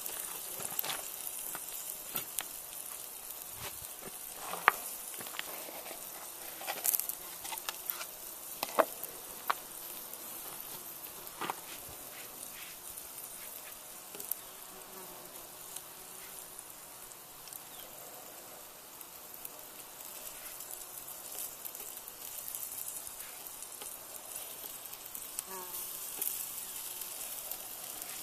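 Beef ribs sizzling on a grill over charcoal in a cast iron camp oven: a steady soft hiss, with scattered light clicks.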